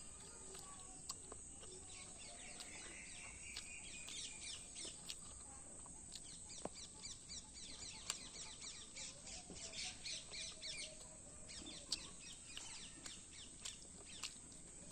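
Small birds chirping in quick runs of short, high calls, with a few faint clicks.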